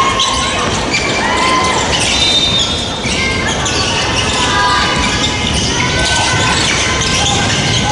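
Basketball game play on a hardwood gym court: sneakers squeaking in short chirps and a basketball bouncing, over a steady hubbub of voices in the hall.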